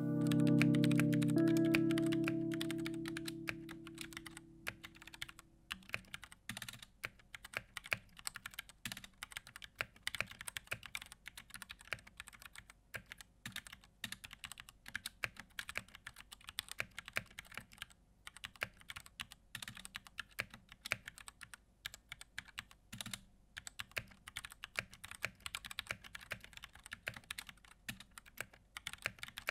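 Typing on a Koodo Arcadia 68% mechanical keyboard with tactile Gateron Brown switches: a quick, uneven patter of key presses. A held music chord fades out over the first few seconds.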